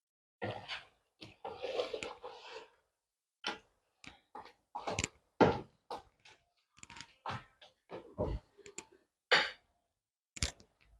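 Irregular clicks and knocks of kitchen utensils and containers being handled, with a short rustle near the start.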